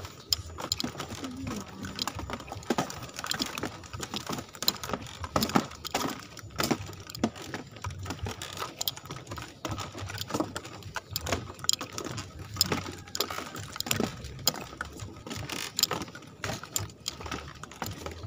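Footsteps in flip-flops on a bamboo-slat boardwalk, the slats giving off an irregular run of clicks and knocks with every step.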